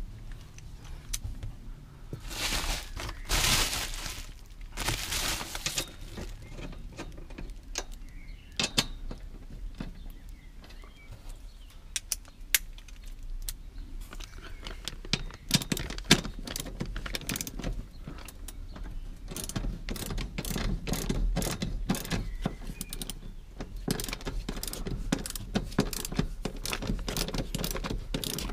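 Socket ratchet wrench clicking in quick runs as the roll cage's mounting bolts are tightened; dense in the second half. A few seconds in, two bursts of rustling noise.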